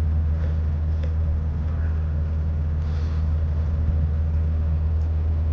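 Vehicle engine idling with a steady low hum, the tow vehicle left running while the horse trailer is being hitched. A few faint clicks sound over it.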